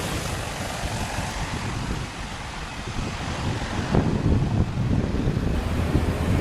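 Wind buffeting the microphone outdoors: a steady low rumble that turns gustier about four seconds in.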